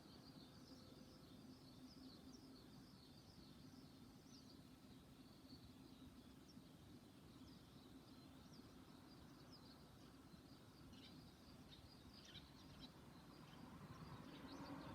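Faint chirps of small birds, many short high notes scattered throughout, over a low steady hum.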